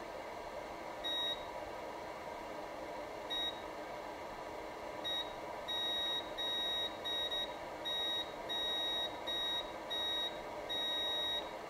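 Multimeter continuity beeper sounding in short, irregular beeps of one high tone as the probes touch a circuit line on the logic board. The beeps start about a second in and come thick and fast in the second half. The beeping signals a short to ground on the line being measured.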